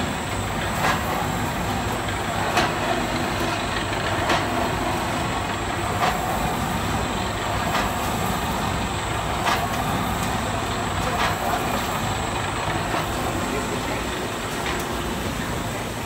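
Continuous rotary charcoal furnace plant running: a steady mechanical rumble and hiss, with a sharp knock that repeats about every one and three-quarter seconds.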